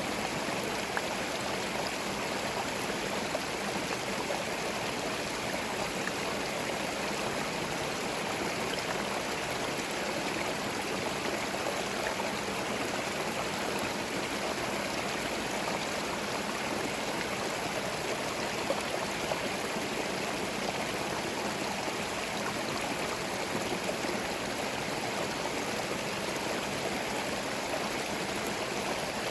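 Small forest stream running over stones, a steady even rush and babble of water.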